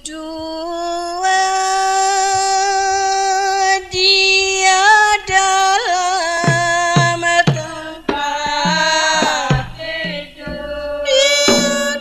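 Ayun-ayun devotional music: a long held melody line that bends and slides between notes, with hand-drum strokes coming in about halfway through.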